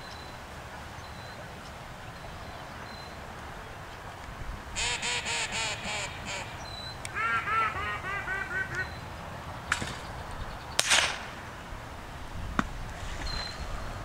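Duck call blown in quacks, a quick run of about eight, then a second run of higher, softer ones, calling the retriever's attention to the mark. About eleven seconds in comes a sharp bang.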